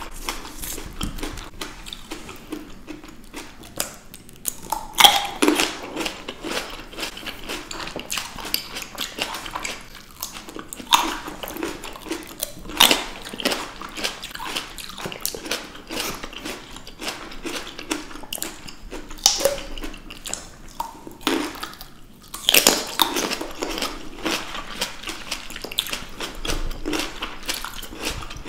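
Two people biting into and chewing green grapes close to the microphones: repeated sharp crunches and pops over continuous wet chewing.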